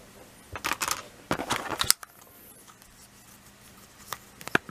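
Plarail plastic toy train rail pieces being handled, with two spells of scraping and rattling in the first two seconds, then a few sharp clicks near the end.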